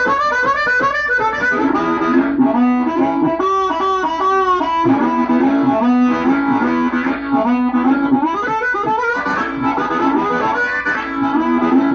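Diatonic harmonica played through a microphone cupped against it and an amplifier, giving a thick amplified tone, in a continuous run of melodic phrases mixing quick note runs with held low notes.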